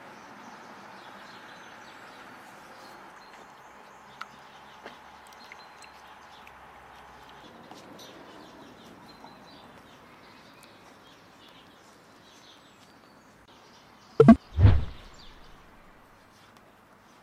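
Outdoor garden ambience: faint bird chirps over a steady low hiss. About fourteen seconds in come two loud, low thumps in quick succession.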